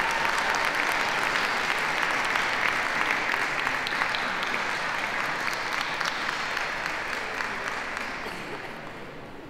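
Audience applauding steadily, then dying away over the last couple of seconds.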